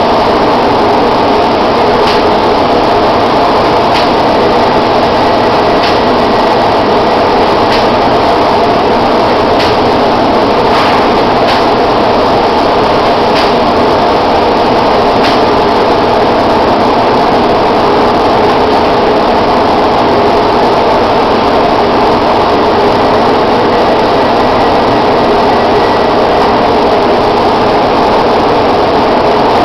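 Paint-spraying equipment running steadily, a constant mechanical drone with faint ticks every couple of seconds.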